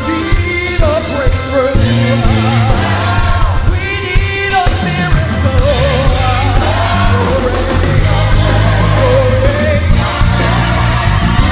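Gospel singing: a solo voice with wide vibrato and runs over a live band with a steady bass line.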